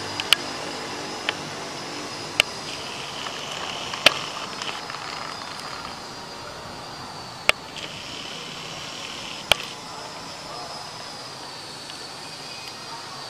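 Steady outdoor background noise with a high wavering hiss, broken by about six sharp clicks, the loudest about four seconds in.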